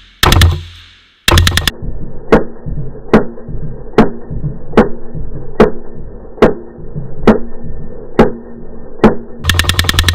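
Browning 1919A4 belt-fed .308 machine gun firing: a shot and a quick burst of several rounds, then a long stretch where each shot comes as a deep, drawn-out boom about every 0.8 seconds, as in slowed-down playback. Near the end, full-speed automatic fire resumes at about ten rounds a second.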